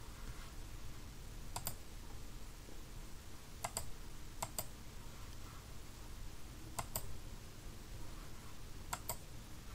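Computer mouse clicking: about eight short, sharp clicks, mostly in quick pairs, a second or two apart, over a faint steady hum.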